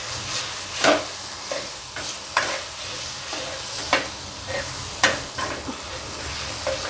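Roasted green chillies, garlic and peanuts being crushed into thecha under the bottom of a steel tambya on a tava: irregular knocks and crunches of the pot pressing and striking the pan, over a steady hiss.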